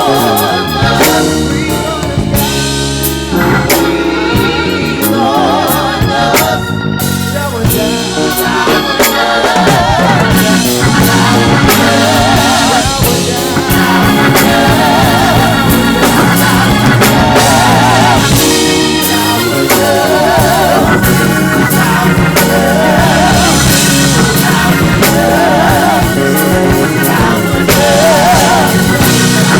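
Live gospel church band playing, with drum kit hits over organ and bass and wavering held notes from voices or organ.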